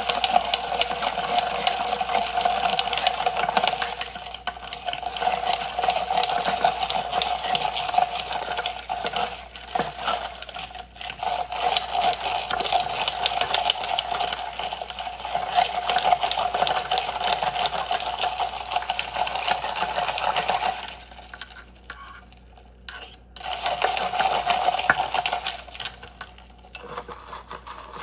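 Metal spoon stirring fast inside a glass mason jar of milk and whipped coffee, clinking and scraping against the glass in a rapid steady rattle, with a short break about three quarters of the way through.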